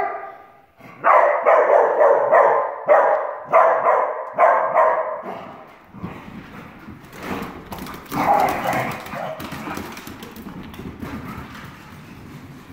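Dachshund play-barking: a rapid run of loud, repeated barks for about five seconds, then fainter barks and light clicks.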